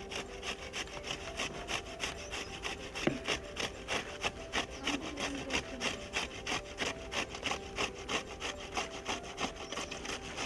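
Ash gourd being grated on a stainless steel hand grater: quick, even scraping strokes, about four a second.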